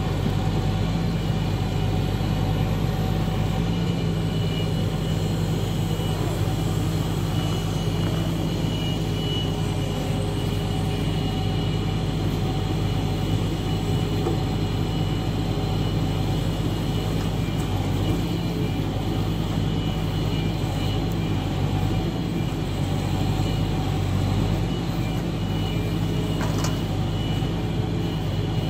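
Log truck's diesel engine running steadily, driving the truck-mounted hydraulic knuckle-boom log loader as it swings and sets down logs.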